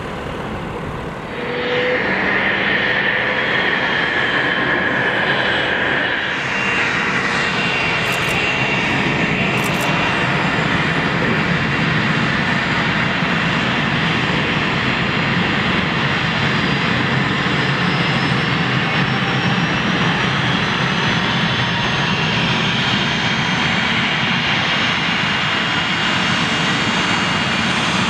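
Business-jet turbofan engines running: a steady rushing noise with a high whine over it. For about the first second and a half, a quieter light single-engine propeller plane is heard before the jet noise takes over.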